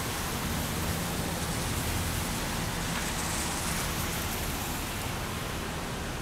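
Steady hiss of rain and wet city traffic, with a low engine hum from passing vehicles underneath.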